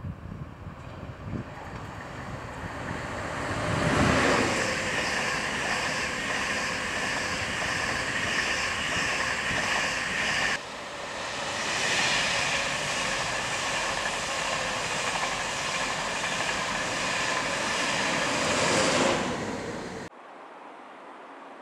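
Passenger train running past on a multi-track main line: a rumble that swells as the train approaches and passes close by, with a regular clatter about twice a second. The sound breaks off suddenly partway through, a second pass builds up, and it drops to a quieter rumble near the end.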